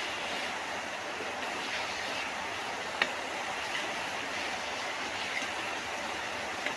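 Metal spatula stirring and scraping vegetables in a steel kadai, with a few sharp clicks where it strikes the pan, the loudest about three seconds in, over a steady hiss.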